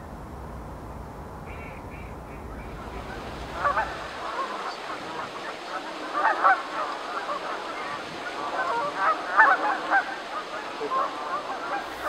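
A flock of Canada geese honking: many short, loud, overlapping calls repeating from about four seconds in, after a few seconds of low steady rushing noise.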